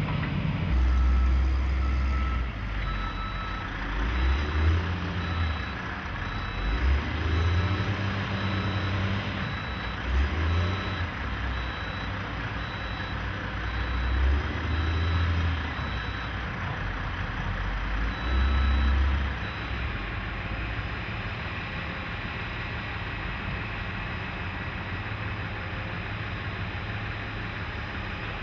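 Heavy earthmoving machines working, their engines swelling in heavy surges every few seconds, with a backup alarm beeping at a steady pace for much of the time before it stops.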